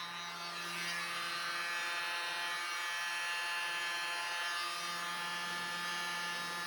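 Small electric air blower running steadily: a motor hum with a rush of air, used to blow wet acrylic paint across a canvas.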